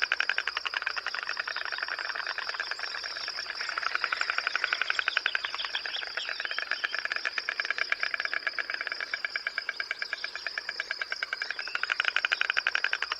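Pond ambience: a rapid, even pulsing chorus that swells louder about four seconds in and again near the end, over a steady high-pitched insect trill.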